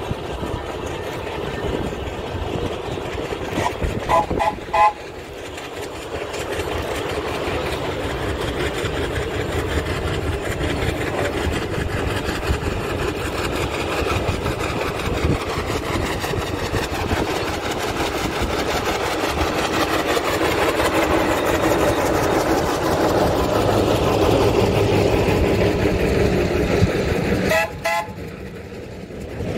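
Short toots of a steam road engine's whistle, a few quick blasts about four seconds in and again near the end, over the continuous noise of steam road vehicles on the move, which grows gradually louder.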